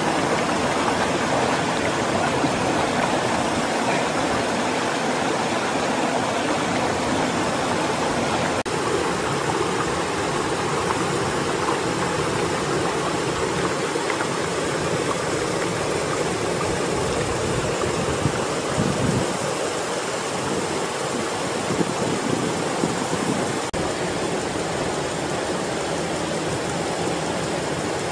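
Steady rushing of a mountain stream tumbling over rocks, with a few light knocks in the second half.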